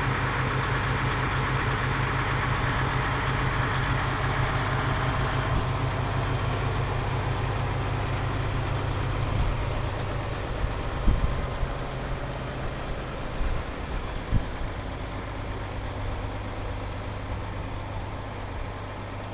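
Car engine idling with a steady, evenly pulsing low exhaust note. A higher hiss cuts out about five seconds in, and a few short knocks come around the middle.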